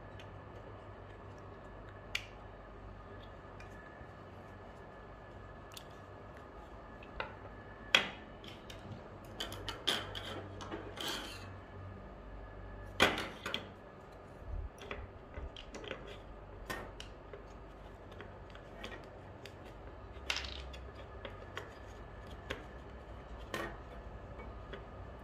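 Plastic parts of a BV20 note acceptor being handled and fitted together: scattered, irregular clicks and taps, the sharpest about a third of the way in and about halfway, with a quick cluster of small clicks between them.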